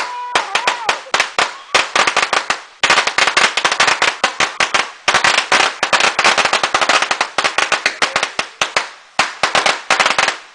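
Firecrackers going off in a long run of rapid, irregular cracks, densest in the middle, thinning out and stopping just before the end.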